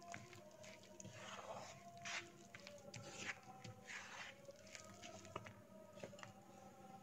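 Faint wet squelching of a thick flour-and-water batter being stirred with a wooden spatula in a nonstick frying pan, with irregular light scrapes and taps of the spatula against the pan.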